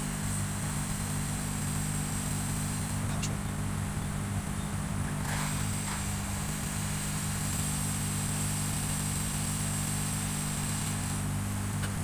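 Steady hum of a small electric motor with an even high whine above it, running without change.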